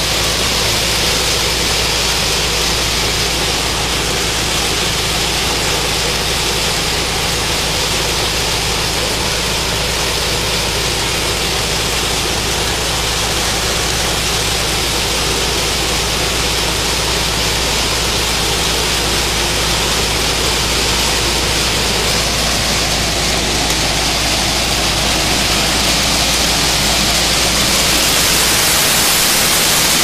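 Mini combine harvester running steadily as it cuts wheat: a steady engine hum under a loud, even rushing noise from the machine.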